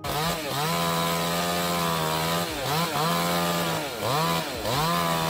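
Chainsaw running at high revs, its pitch dipping briefly and climbing back twice.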